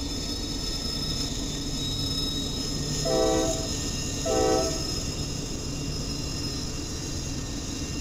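Freight train rolling past with a steady rumble, while a locomotive horn sounds two short blasts about three and four seconds in.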